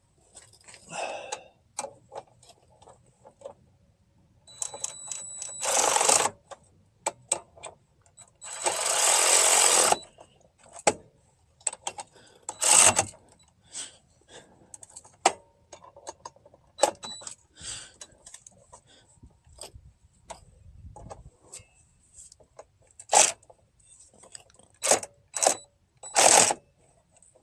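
Hand tools working the bolts of a new front wheel hub assembly as they are snugged up: scattered clicks and metal clanks, with several short rasping bursts. The longest burst lasts about a second and a half, around nine seconds in.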